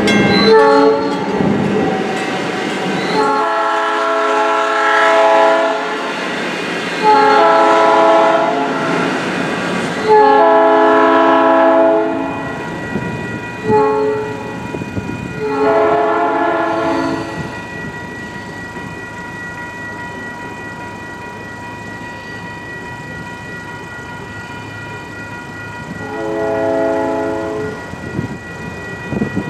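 South Shore Line electric commuter train sounding its horn for the grade crossing in a series of long chord blasts with one short one, then a further blast near the end. Its wheels rumble over the crossing, and the crossing signal rings steadily underneath.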